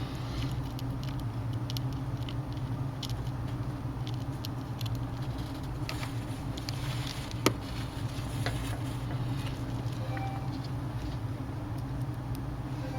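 Small clicks and light taps of a small screwdriver and tiny screws on a tablet's frame while the corner screws are driven in, with one sharper click about seven and a half seconds in. A steady low hum runs underneath.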